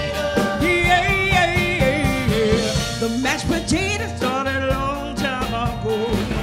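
A woman sings lead over a live band, with guitars and a drum kit keeping a steady beat.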